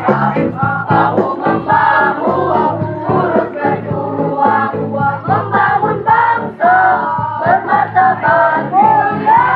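Choir singing a march-style school anthem in parts, over steady instrumental backing.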